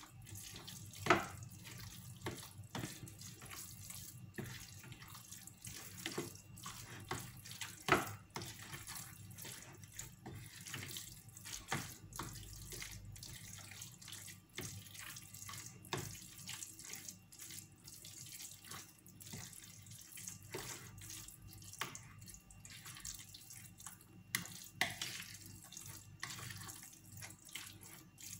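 Metal spoon stirring a wet spinach, cheese and egg filling in a ceramic bowl: soft wet mixing sounds with irregular clicks of the spoon against the bowl, the loudest about a second in and again about eight seconds in.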